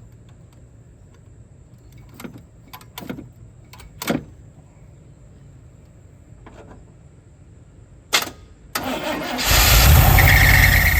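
A few light clicks and knocks. Then, near the end, a V8 truck engine with a carburettor is cranked by the starter and fires, running loudly. It is being started to check the battery voltage, since it dies right after firing and the alternator is suspected.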